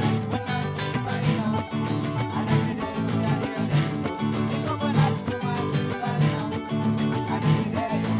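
Acoustic string-band music: guitar playing over a repeating low bass line, with frequent crisp percussive clicks on top.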